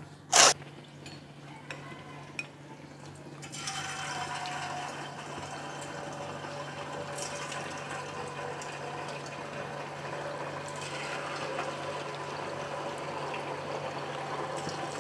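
Batter-coated cauliflower florets deep-frying in hot oil: a steady sizzle with fine crackle that starts about three and a half seconds in, as more florets go into the oil. A single sharp clack about half a second in is the loudest sound.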